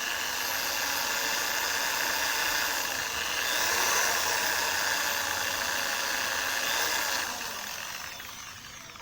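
A small high-speed rotary power tool runs steadily with a whine, working on seized screws in a Bolex camera's spring-motor plate to cut them out. It is loudest about four seconds in and winds down over the last couple of seconds.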